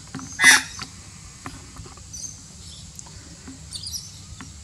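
Australian magpie giving one short, harsh squawk about half a second in, then faint high chirps twice later on.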